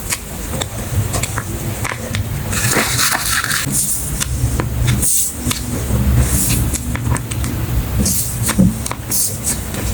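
Hands packing a paper squishy order: plastic packaging and paper rustling and crinkling, with many small clicks and taps and short hissy bursts throughout.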